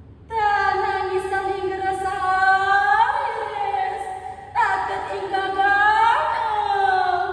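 A woman singing solo in two long, drawn-out phrases. Each phrase is a held note, falling slightly, that steps up in pitch partway through: about three seconds in and again about six seconds in.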